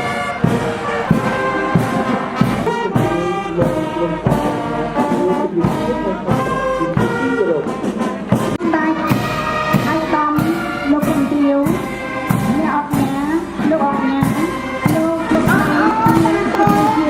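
Brass-led music with a steady beat.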